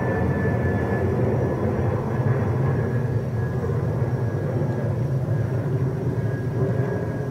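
Twin-engine jet airliner flying overhead at altitude: a steady, low rumble of its engines.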